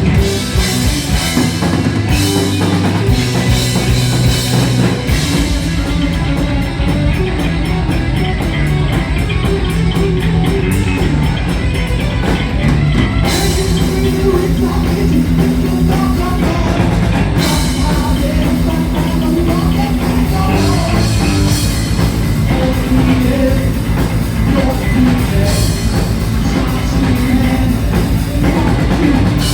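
Live heavy metal band playing loud: distorted electric guitars, bass and a drum kit. A rapid, even bass-drum beat sets in about five seconds in.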